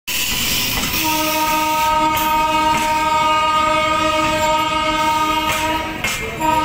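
Electric locomotive's horn blowing one long steady multi-tone blast from about a second in, breaking off briefly near the end and starting again. Underneath, passenger coaches roll by with wheels clicking over rail joints.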